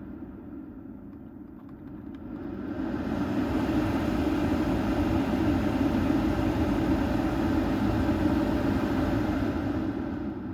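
Blower fan running steadily with a rush of air, freshly cleaned and with its motor shaft greased, running quiet without its earlier abnormal noise. It is turned up to a higher speed about two to three seconds in, then winds down near the end.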